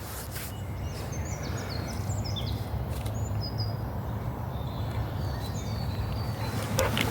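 Songbirds singing: a run of quick high notes about a second in, then shorter scattered phrases, over a steady low rumble.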